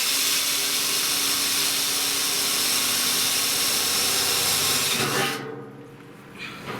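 Electric drill running at a steady speed, drilling holes in the steel of a barrel stove, then stopping and winding down about five seconds in.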